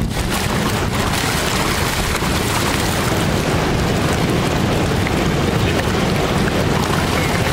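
Steady rush of river water through shallow rapids, with lake sturgeon splashing and thrashing at the surface as they spawn.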